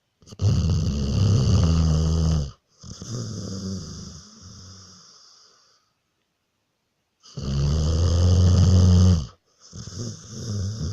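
Deep, rattling snoring: two loud in-breaths of about two seconds each, each followed by a softer out-breath that fades away, with a short silence before the next breath.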